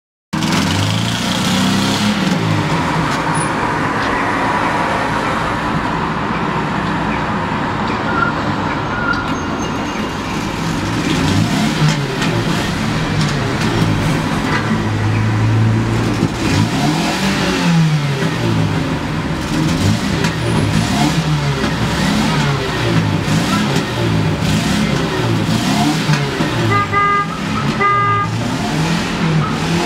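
Road traffic: vehicle engines running and passing, rising and falling in pitch, with two short car-horn beeps near the end.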